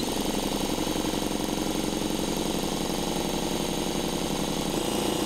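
A drill spinning a 3D-printed air compressor that is working as a vacuum pump, pumping down a glass-jar vacuum chamber. A steady motor whine runs over a fast, even pulse from the pump. The pitch shifts slightly near the end.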